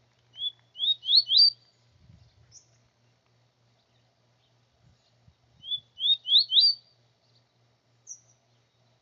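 A small songbird sings a short phrase of four quick rising whistled notes. It repeats the same phrase about five seconds later, and each phrase is followed by a brief higher note.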